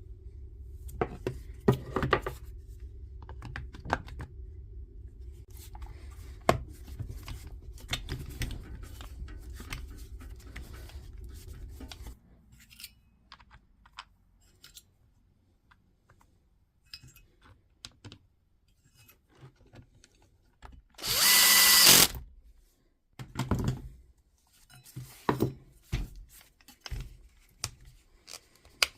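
Small parts clicking and rattling as a power tool's plastic casing is reassembled, with a steady low hum that stops about twelve seconds in. Past the middle, a cordless power screwdriver runs once for about a second, driving a casing screw; this is the loudest sound.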